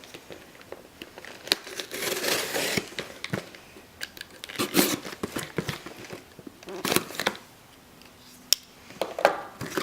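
A Spyderco Dragonfly folding knife slitting the packing tape on a shipping box, with tape tearing, cardboard flaps rustling and scattered clicks and knocks as the box is opened.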